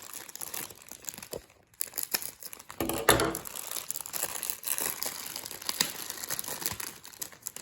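Toy packaging crinkling and tearing as a plush toy is unwrapped by hand, in irregular rustles with a brief pause early and the loudest rustle about three seconds in.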